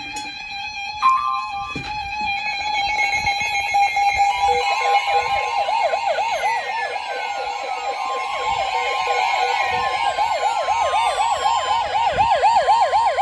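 NOAA weather radio receivers going into warning alarm: steady alert tones at first, then from about four and a half seconds in a steady high warning tone with an electronic siren yelping rapidly over it, about three sweeps a second.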